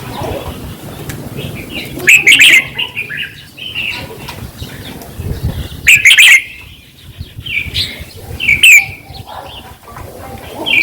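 Red-whiskered bulbul singing: loud, short chattering phrases about two seconds and six seconds in, and quick falling whistled notes near the end.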